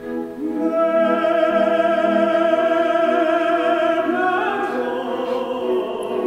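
Classical background music: an operatic singing voice with accompaniment holds one long wavering note, then moves up to higher notes about four seconds in.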